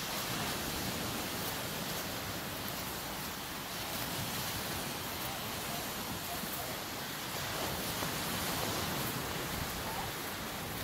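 Surf washing onto a sandy beach: a steady, even rush of waves with slow, gentle swells in loudness.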